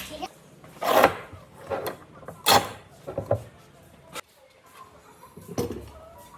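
Several separate knocks and short scrapes of handling noise, the sharpest a single click about two-thirds of the way through.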